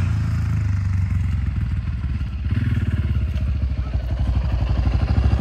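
Small dirt bike engine running at low speed as the bike rides closer, growing gradually louder.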